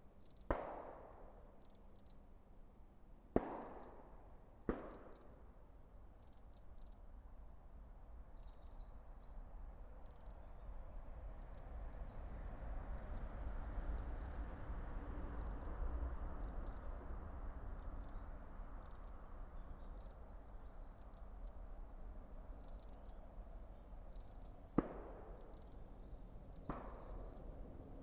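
A handful of sharp cracks or knocks, irregularly spaced, each ringing briefly: two close together near the start and two near the end. Between them runs a low wind-like rumble that swells in the middle, with faint high clicking throughout.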